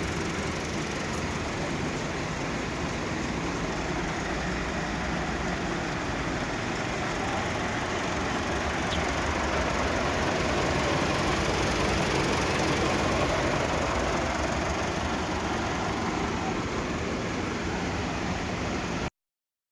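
Massive 399 tractor's diesel engine idling steadily, a little louder midway, until the sound cuts off abruptly near the end.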